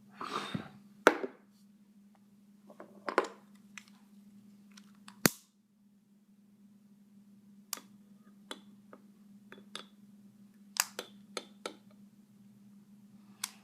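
A short puff of breath blowing out a candle at the start, then a handheld lighter clicking again and again, about a dozen sharp separate clicks with a quick run of four near the end, as it is struck to light the candle's smoke.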